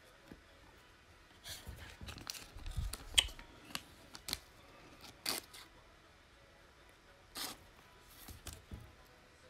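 Quiet, scattered rustles and clicks of trading cards and a clear plastic card sleeve being handled, a little cluster of them early and single ones spread through the rest.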